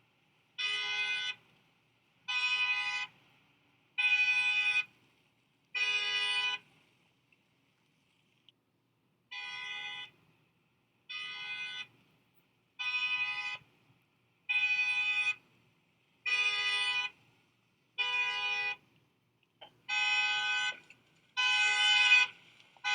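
Car horn honked over and over in short, evenly spaced blasts, about one every second and a half to two seconds. After a pause of about three seconds the honking resumes, a couple of blasts fainter than the rest.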